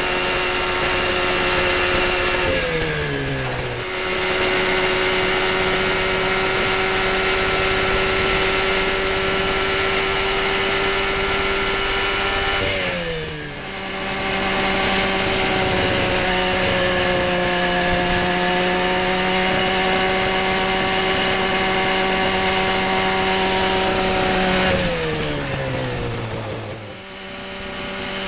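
Mosquito ultralight helicopter's MZ202 two-stroke engine and rotor running at a steady high speed. Three times the pitch slides down as it winds down, the sound dips briefly, and then it runs steady again.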